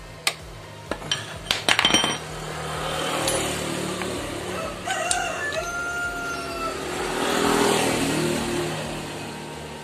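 Sharp metal clinks of a wrench being set on a motorcycle clutch nut in the first two seconds, then a rooster crowing in the background, one long held pitched call near the middle.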